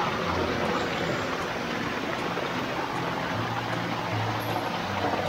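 Small mountain stream cascading over boulders: a steady rush and splash of water.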